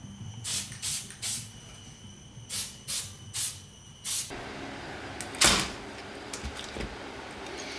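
A series of light clicks and taps, about eight in all, spread unevenly, as small craft tools and materials are handled on a work surface. A faint steady high whine runs underneath.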